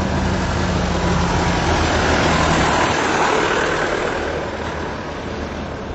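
Stampe Vertongen SV-4 biplane's piston engine and propeller running as the plane taxis past. The sound is loud and steady, then fades over the last couple of seconds as the plane moves away.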